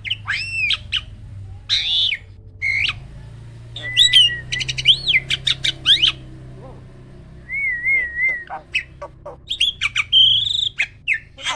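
A jalak (starling) singing a varied song: arching whistled notes, quick runs of sharp clicks and a wavering trilled whistle, with a short pause about halfway through.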